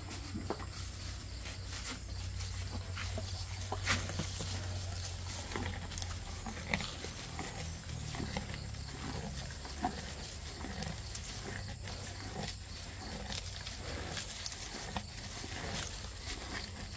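Simmental bull chewing and tearing fresh grass close up, a run of irregular crunches and crackles over a steady low hum.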